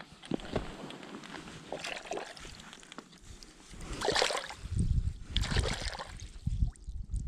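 Lake water splashing and sloshing, with two louder splashes about four and five and a half seconds in.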